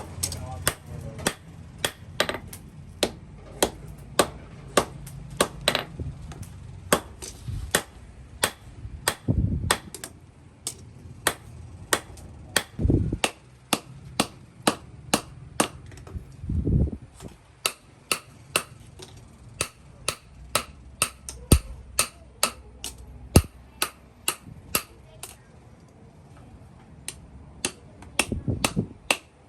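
Hammer blows on steel, struck in a fast, uneven rhythm of about two to three ringing hits a second, with a short pause near the end.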